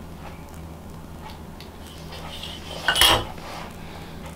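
A ruler set down on a glass tabletop: one brief clatter about three seconds in, over a steady low hum.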